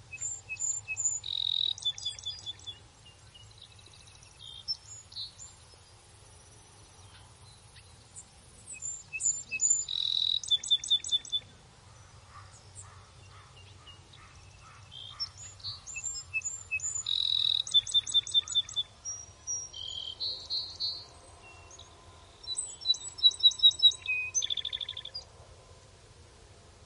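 Birds chirping and singing in bursts of quick high notes and trills every few seconds, over a faint steady low hum.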